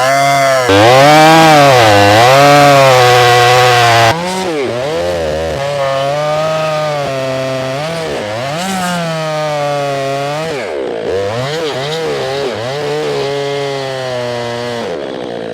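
Stihl 500i two-stroke chainsaw cutting through a large log, its engine pitch repeatedly dipping under load and recovering. The sound drops abruptly in loudness about four seconds in, and the saw keeps cutting.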